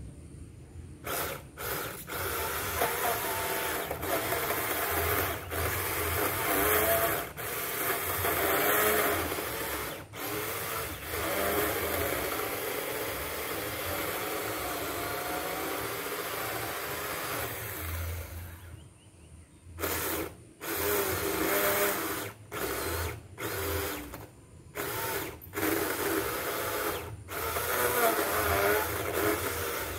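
Bull 4-inch cordless mini chainsaw cutting into the hard wood of an old water apple tree trunk, about 8 inches thick. The electric motor and chain run under load with brief breaks. There is a longer pause about two-thirds through, then a string of short bursts before steady cutting resumes.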